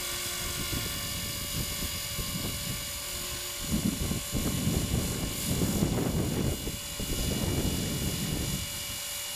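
450-size electric RC helicopter hovering, its motor and rotor giving a steady high whine made of several held tones. From about four to eight and a half seconds in, a gusty low rumble of wind on the microphone comes and goes.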